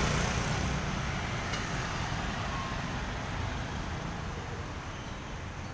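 Street traffic, with motorbikes and cars passing: a steady rumble and hiss that is loudest at first and eases slightly toward the end, with one small click.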